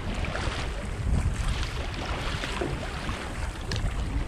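Wind buffeting the microphone over choppy water slapping and splashing against a kayak's hull.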